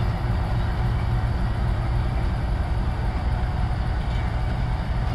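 Pakistan Railways GEU 20 (GE U20C) diesel-electric locomotive's engine chugging steadily under load as it pulls its passenger train away from the station.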